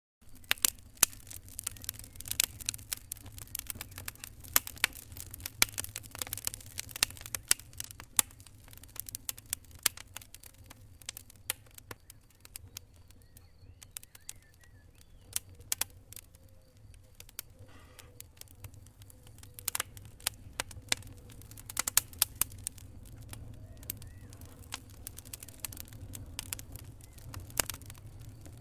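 Wood fire crackling in a fireplace: irregular sharp pops and snaps, some much louder than others, over a low steady rumble.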